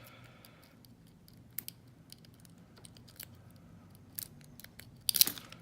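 Faint scattered clicks of a hook pick working the pins inside a small Lockwood 232 padlock, then a brief loud metallic scrape near the end as the pick slips right out of the keyway.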